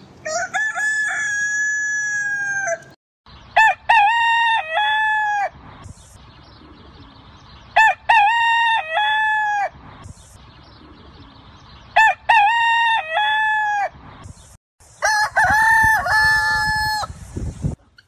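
Village roosters (ayam kampung) crowing: five loud crows in turn, each about two seconds long. The first is a long, level crow; the middle three are alike and come about four seconds apart; the last, near the end, has a different shape.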